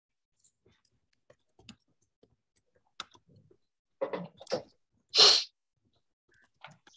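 A person sneezing once, loud and short, just after five seconds in, with two breathy intakes a second before it. Faint scattered clicks come earlier.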